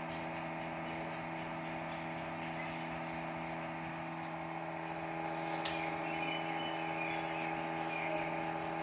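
A machine's steady hum made of several even tones, a little louder after about five seconds in, with one faint click about five and a half seconds in.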